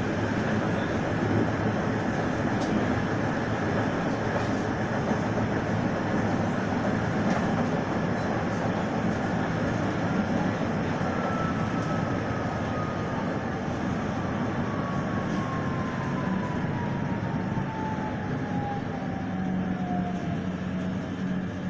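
Steady rumbling of an electric tram in motion, heard from inside the car. Through the second half an electric motor whine falls slowly in pitch as the tram slows toward the next stop.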